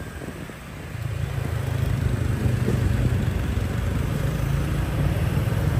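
Motor vehicle engine on a city street: a low, steady drone that swells about a second in and then holds.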